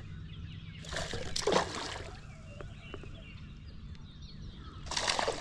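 Two short water splashes from a hooked bass thrashing at the surface, the first about a second and a half in and the second near the end, over a low steady hum.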